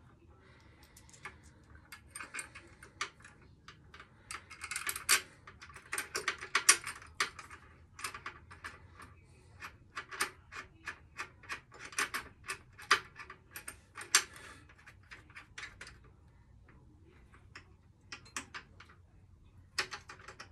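Hand socket ratchet clicking in irregular runs of quick clicks as the rear shock absorber's top mounting bolt is done up, the clicks thinning out near the end.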